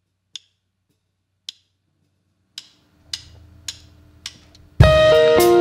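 Drumsticks clicked together to count in a band: three slow clicks, then three quicker ones, with a faint low held note joining about three seconds in. Just under five seconds in the full band comes in loud, guitars to the fore.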